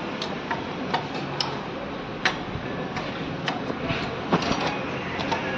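Metal hand-tool clicks and clinks, irregular, from a socket wrench on a long extension bar undoing the bolts of a Renault Triber manual gearbox casing, over steady workshop background noise.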